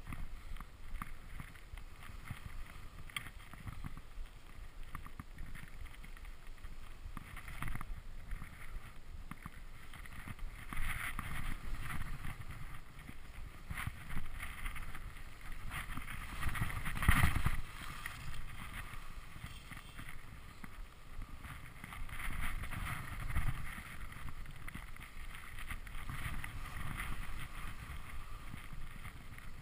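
Skis hissing and scraping through snow while skiing downhill, mixed with wind rushing over the microphone. The noise swells and fades in waves and is loudest about seventeen seconds in.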